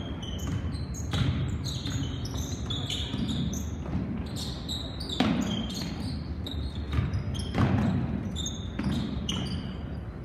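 Basketball being dribbled on a hardwood gym floor, the ball thudding in a series of bounces, with short high squeaks of sneakers on the court in between.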